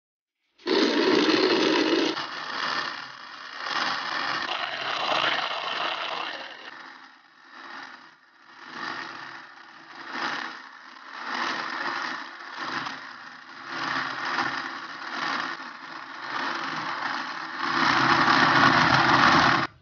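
Electric blender motor running, blending falsa berries into a drink. It starts suddenly and rises and falls about once a second, louder for its first second or so and its last two seconds, then cuts off abruptly.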